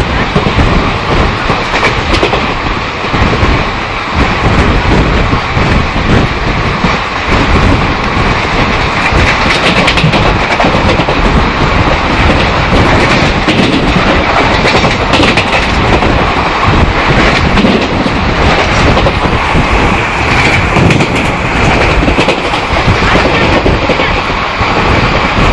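Mumbai CSMT–Amritsar express train running at speed, heard from aboard the coach: a loud, steady rumble of wheels on rail with a clickety-clack of rail joints.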